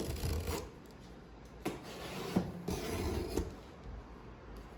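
Packaging being handled and unwrapped: rubbing and scraping in a few bursts, with some light knocks.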